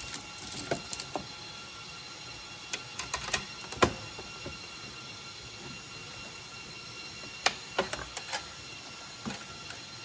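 Scattered clicks and knocks of plastic and sheet metal as the PCIe riser cage holding the GPU is handled, pressed down and latched into the server chassis. They come in a few short clusters, the loudest knock about four seconds in, over a faint steady hum.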